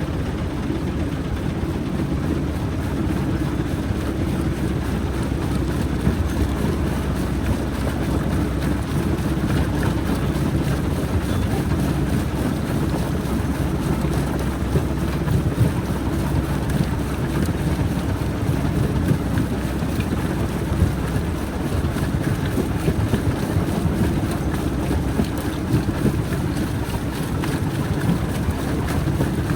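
Rock crusher plant running: a steady heavy mechanical rumble with a low hum, and a few sharper knocks standing out briefly.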